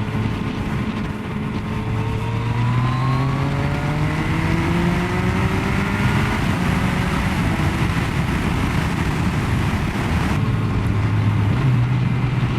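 Yamaha Tracer motorcycle engine pulling under acceleration, its pitch rising steadily for several seconds and then holding, with a change in engine note near the end. Wind rush on the microphone runs under it.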